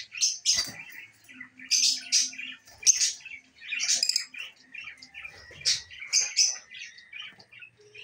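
Budgerigars chirping: a string of short, high chirps, about one or two a second.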